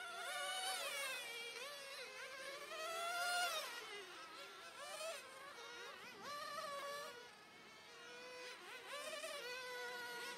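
Motors of several radio-controlled 1/10-scale touring cars buzzing at high pitch. The pitch repeatedly rises and falls as the cars accelerate and brake around the course, and the sound is loudest about three and a half seconds in.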